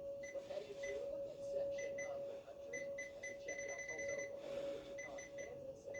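Outdoor warning siren test, heard faintly as a steady siren tone. Irregular short, high-pitched electronic beeps sound over it, one held for about a second near the middle.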